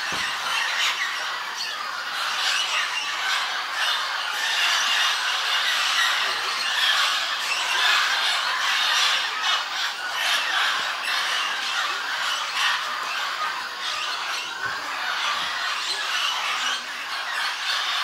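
A large flock of parrots, mealy amazons and blue-headed parrots, calling all at once: a continuous din of overlapping squawks and screeches.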